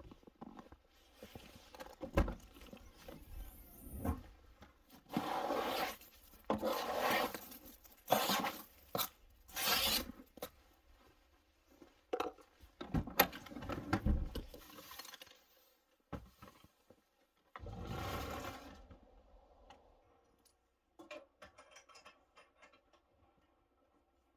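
Scraping and rustling of gear being handled in and around a snow-covered car's open rear hatch, with a couple of sharp knocks; it dies down to faint scattered clicks near the end.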